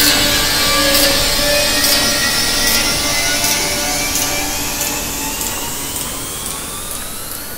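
Dense, machine-like electronic noise drone with a few steady tones and a faint click about once a second, slowly fading. From about halfway, thin tones glide slowly upward in pitch.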